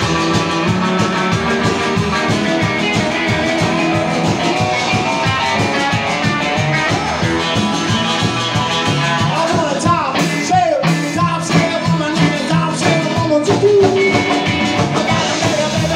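Live rock and country band playing: acoustic and electric guitars, upright bass and drums.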